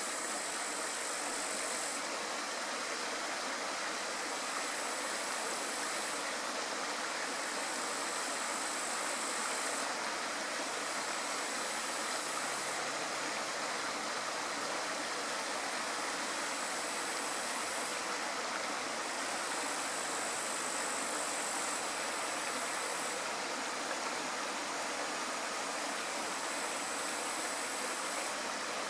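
Steady rushing noise of flowing water, with a high thin buzz that starts and stops in phrases of one to three seconds.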